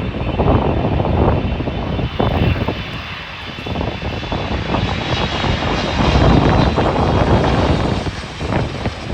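Jet airliner engines running, a rumble with a faint steady high whine over it, buffeted by heavy wind on the microphone.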